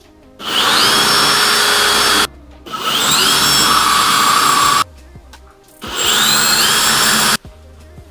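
Cordless drill drilling into ceramic wall tile in three runs of about two seconds each, its motor whine rising at the start of every run and then holding steady.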